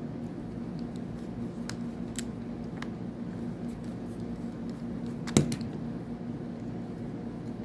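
Light clicks and taps of small reel parts and tools as a Daiwa fishing reel is taken apart, with one sharper knock about five seconds in, over a steady low hum.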